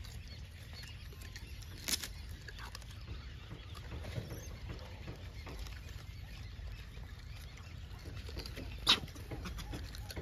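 A troop of gray langurs moving and eating on dry ground: scattered soft rustles and clicks over a steady low rumble, with a sharp short sound about two seconds in and a louder one near the end.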